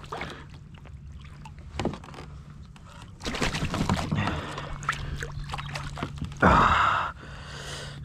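Water splashing and wings flapping as a gull hooked by a jerkbait lure thrashes at the surface beside a kayak, starting about three seconds in. A short loud burst follows near the end.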